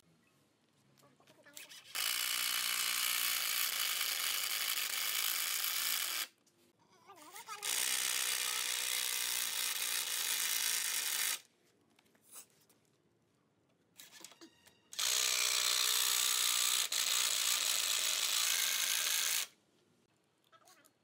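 Cordless impact driver driving long screws into softwood framing, three runs of about four seconds each with short pauses between.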